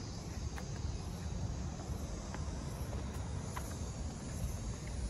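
Insects buzzing in dry forest: a high, shrill drone that swells and fades roughly every three-quarters of a second, over a steady low rumble.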